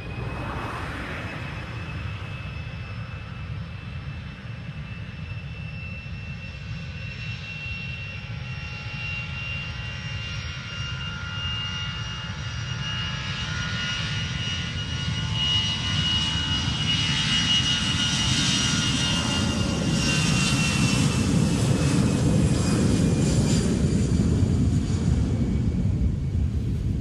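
Jet airliner's engines approaching and passing: a steady high fan whine over a rumble that grows steadily louder. The whine drops a little in pitch about two-thirds of the way through as the rumble peaks.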